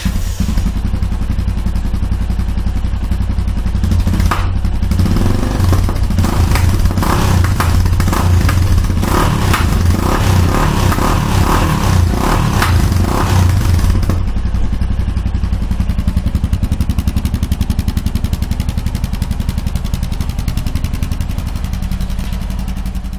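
Yamaha XT660Z Ténéré's single-cylinder four-stroke engine running through a Scorpion carbon slip-on silencer with its noise damper (dB killer) fitted. It idles, is revved repeatedly from about four seconds in until about fourteen, then settles back to a steady idle.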